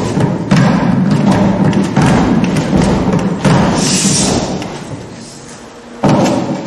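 Deep, loud thumps, five at uneven intervals, each ringing on and fading over about a second, with a short hiss about four seconds in.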